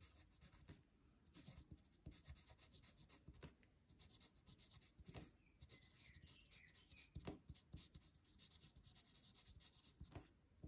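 Faint scratching of a pen on paper, in many short strokes, as a name is written out in block capitals.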